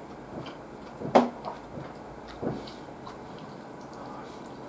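Close-miked eating: chewing and small mouth sounds, with a sharp click a little over a second in and a softer one about a second later.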